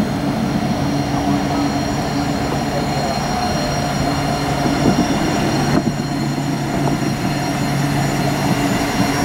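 Alstom Citadis electric tram passing close by, wheels rumbling on the rails, with a steady electric whine from its traction equipment.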